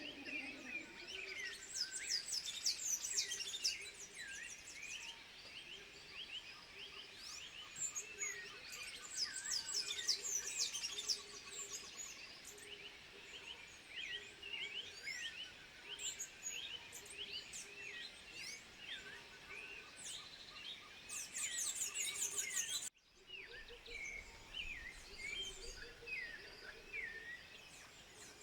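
Dense chorus of high, quick chirps and whistles from many calling animals, with faint regular pulsing underneath. The sound cuts out suddenly and briefly about three-quarters of the way through.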